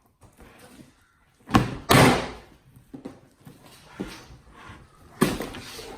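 Heavy, water-logged slime slapped and dropped onto a table: two loud wet thuds about a second and a half and two seconds in, a smaller knock or two, and another thud near the end.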